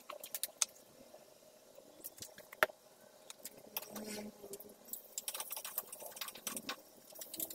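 Wooden spatula clicking and scraping against a steel wok, the taps coming thicker near the end as chopped garlic is pushed in from a plate.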